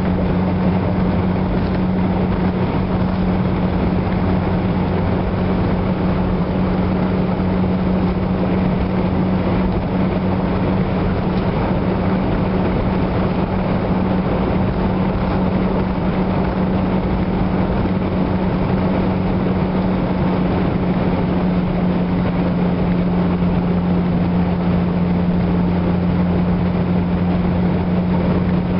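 Interior cabin noise of a car cruising at steady highway speed: a constant engine drone with a low hum, under steady tyre and road rumble.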